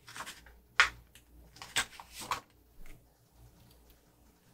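Paper stickers being handled on a planner page with a sticker tool: a handful of short ticks and rustles.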